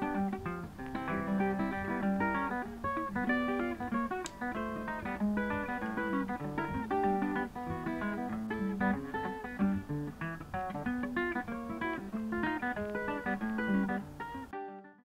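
Background music: acoustic guitar playing a quick, densely picked tune, which fades and stops just before the end.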